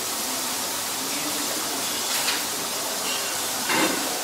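Food sizzling on a flat-top griddle as a steady hiss, with a metal spatula scraping and knocking on the hot plate twice, about two seconds in and again near the end, the second louder.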